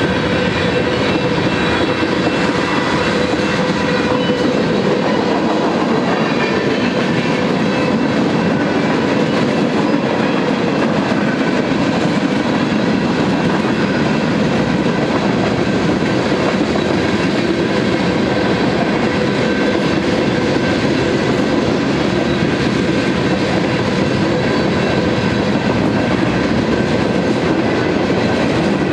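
Freight train cars rolling past: a steady rumble and clatter of wheels on rail, with several steady whining tones over it.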